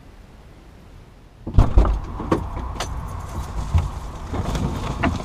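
A vehicle door opens about one and a half seconds in and lets in outside noise. A person then climbs into the seat, with thumps, knocks and clicks as they settle in.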